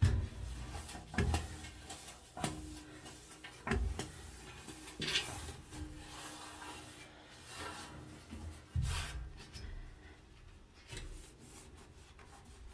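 A cloth wiping and rubbing over a washing machine's surfaces, broken by several short knocks and bumps against the machine.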